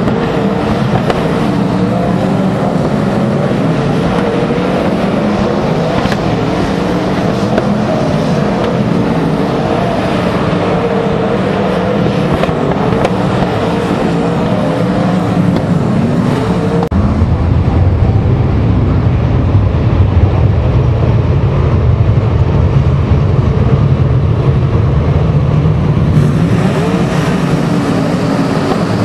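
Several winged sprint car engines running together as the field laps a dirt oval. About 17 seconds in the sound turns deeper and louder, with less treble, until near the end.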